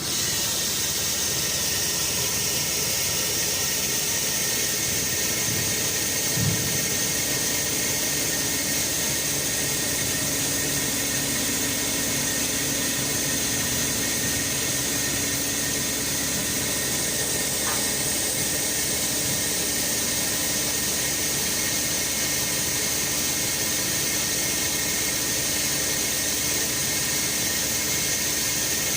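Hook loader truck working steadily, its engine and hydraulics running under load with a constant high hiss. One brief thud comes about six seconds in.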